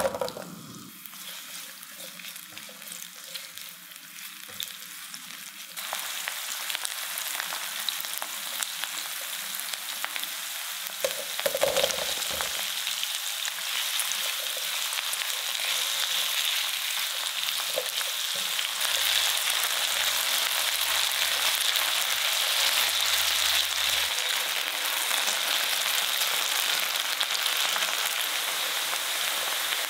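Diced onion sizzling in hot oil in a frying pan, the sizzle growing louder about six seconds in. Near the middle sliced potatoes go in with a brief louder rush, and onion and potatoes keep frying with a steady sizzle as they are stirred with a spatula.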